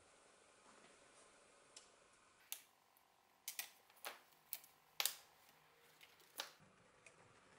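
About half a dozen sharp, irregular metal clicks as an alligator clip is unclipped and handled on the lead of an electrolysis rust-removal bath, over a faint background.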